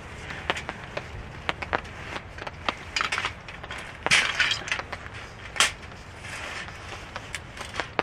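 Clicks, clanks and knocks of a black metal mesh folding camp table being unfolded by hand, its legs and frame snapping into place, with some rustling partway through.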